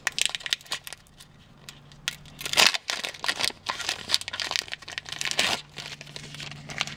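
Foil Pokémon booster pack being torn open and crinkled between the fingers: irregular crackles, the loudest about two and a half seconds in.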